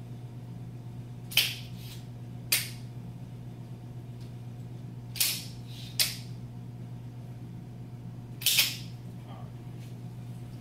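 Expandable metal baton clacking as its sections are snapped open and shut: five sharp metallic clacks a second or more apart, the last a quick double, each with a short ring. A steady low hum runs underneath.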